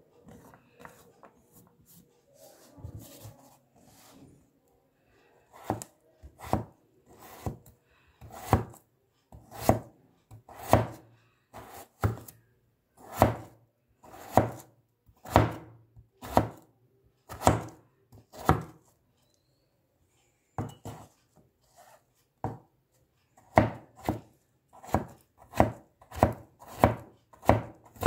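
Stainless steel cleaver chopping through potato onto a plastic cutting board. After a few seconds of quiet handling, sharp chops come about once a second; after a short pause they resume faster, about two a second.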